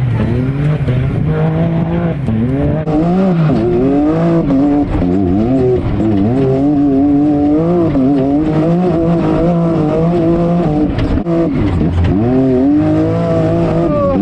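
Side-by-side UTV engine racing hard, its pitch rising and falling over and over as the throttle is opened and eased off. About three seconds in, the sound switches to a microphone on board, inside the roll cage.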